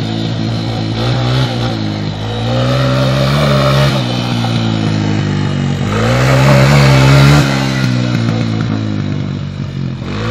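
Honda 250 sport ATV engine revving up and down as it is ridden hard on dirt trails, the pitch rising and falling with each throttle change and loudest in a surge about six to seven seconds in.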